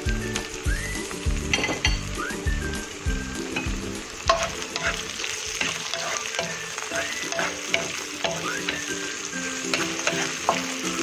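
Raw shrimp, onion and garlic sizzling in hot oil in a wok. From about the middle on, a wooden spatula stirs them, adding sharp scrapes and clicks against the pan.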